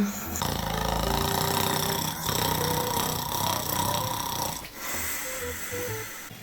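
A man snoring in his sleep, with a long, heavy snore starting about half a second in and further snoring after it. A light background tune plays underneath.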